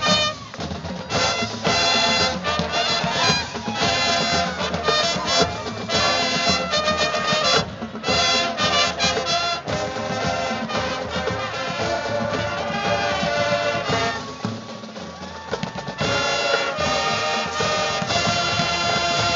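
Marching band playing a loud rock arrangement on brass and drums, in short punchy repeated stabs. The band drops to a softer passage about two-thirds through, then the full band comes back in.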